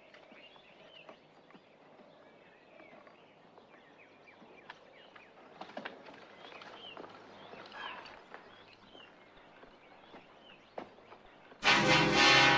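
Faint outdoor ambience with scattered short bird chirps and a few soft knocks. About a second before the end, music starts suddenly and loudly.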